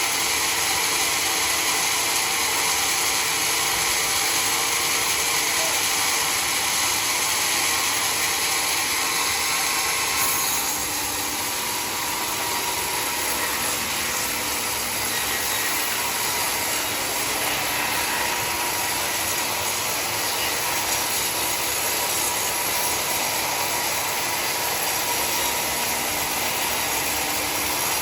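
Sawmill saw running and cutting mahogany, a steady, loud, high-pitched noise that eases slightly about ten seconds in.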